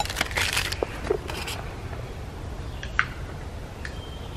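Crinkling of a small drink sachet being handled, followed by a few light clicks and knocks of camp cookware being moved.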